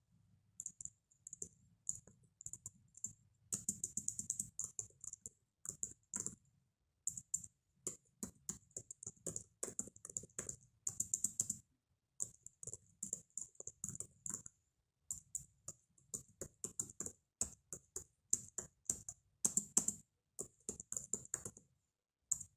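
Typing on a computer keyboard: runs of rapid keystroke clicks broken by short pauses, starting about half a second in.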